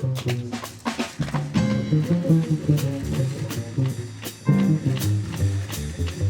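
Jazz band playing an instrumental passage, with bass notes, chords and drum kit and no singing.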